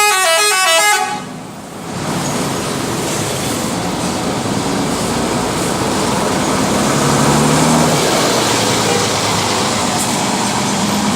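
A bus's multi-tone 'telolet' musical horn plays a quick stepping run of notes for about a second and cuts off. After it comes the steady, loud noise of a heavy vehicle's engine running close by.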